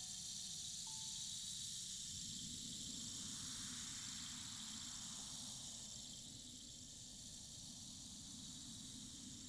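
Experimental live film score made of a steady hissing noise texture over a low rumble. Two faint thin held tones sound in the first second or so, and a soft swell of noise rises and fades in the middle.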